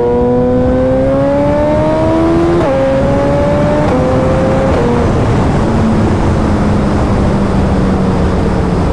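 Suzuki Hayabusa's inline-four engine through a Brocks Performance Alien Head 2 exhaust, pulling hard with its pitch rising, then three quick upshifts about 2.6, 3.9 and 4.7 seconds in. After that it settles into a steady cruise at a lower pitch, under growing wind noise.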